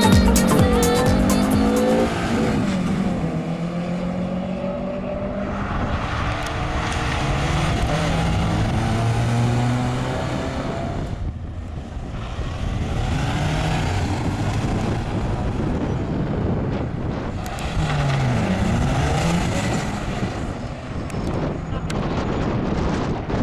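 Hatchback car engines, Peugeot 306s among them, revving and accelerating hard off the line in side-by-side sprint runs, the pitch climbing and dropping through the gears several times.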